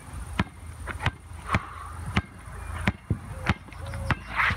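Basketball being dribbled on a hard outdoor court, with a sharp bounce about every two-thirds of a second over a steady low rumble.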